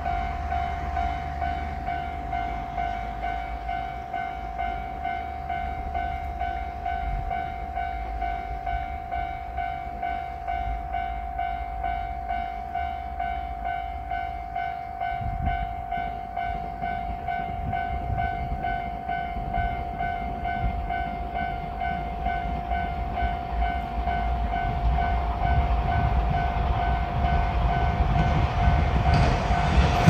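Japanese railroad-crossing warning bell ringing steadily at about two strokes a second, signalling that a train is coming. Under it, a diesel train's rumble grows louder over the last few seconds as it approaches.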